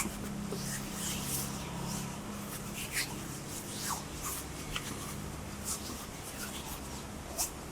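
Close-up ASMR hand sounds: palms and fingers rubbing and brushing together in short, irregular strokes, over a faint steady low hum.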